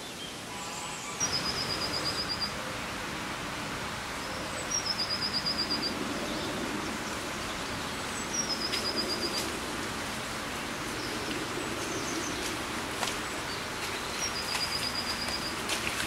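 A small songbird repeating a short high song four times, every three to four seconds: a brief higher note followed by a fast, even trill, over steady outdoor background noise.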